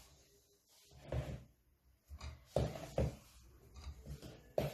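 About five soft knocks and handling noises from a metal mesh sieve and plastic mixing bowl as flour is added a little at a time to a butter-and-cheese dough. The loudest knock comes near the end.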